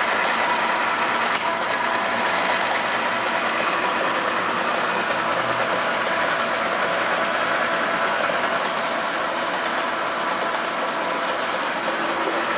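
INDEX Model 55 milling machine running under power, its half-horsepower power-feed motor driving the table feed through the long drive rod: a steady mechanical whir, with one short tick about a second and a half in.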